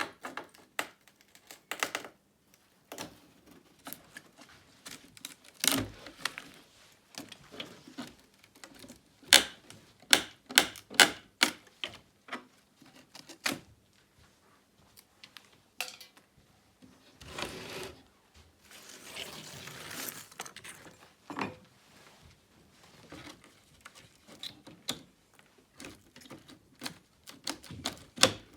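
Old wooden roof boards and shingles being pried and knocked loose by hand: irregular sharp knocks and cracks of wood, with a scraping, tearing stretch about two-thirds of the way through.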